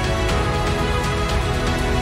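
Background music with a steady beat and sustained tones.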